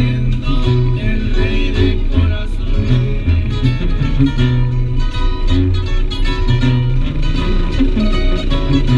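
Background music with prominent guitar and a steady beat.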